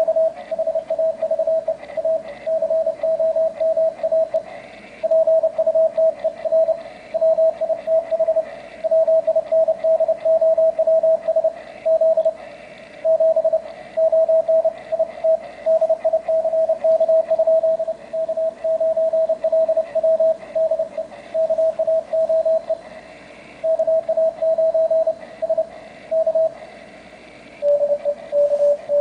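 Morse code (CW) signal from an amateur radio receiver, played through a homebrew speaker set in a hard plastic tumbler that resonates near 650 Hz: a single tone keyed on and off in dots and dashes over a faint hiss. Near the end the tone shifts slightly lower in pitch.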